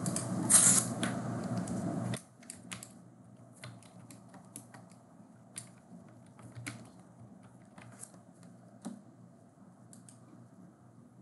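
Computer keyboard typing: faint, irregular keystrokes spread over several seconds, after a steady hum and hiss that cuts off suddenly about two seconds in.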